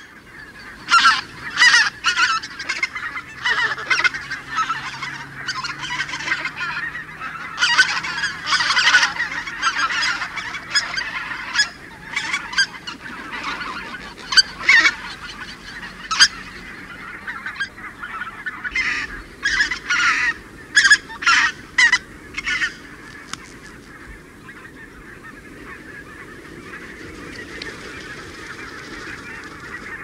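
A small flock of white-fronted geese giving flight calls up close, many short honking calls in quick, overlapping bursts. The calling thins to a few calls after about twenty seconds and stops about three-quarters of the way through, leaving a faint steady background.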